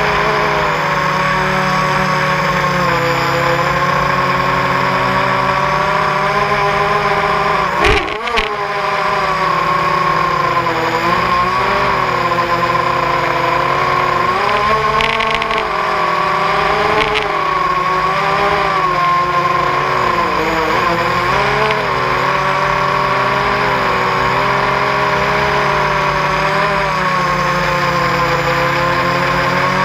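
Brushless motors and propellers of a ZMR250 racing quadcopter whining in flight, heard close up from a camera on the quad; the whine rises and falls in pitch as the throttle changes. About eight seconds in there is a brief sharp knock with a momentary dip in the sound.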